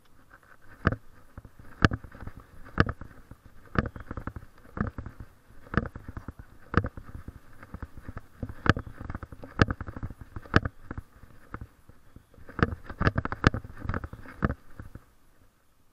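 A person's footsteps on a concrete sidewalk, picked up as sharp knocks through a body-worn camera, about one a second. They come closer together near the end and stop shortly before it, over a faint rustling hiss.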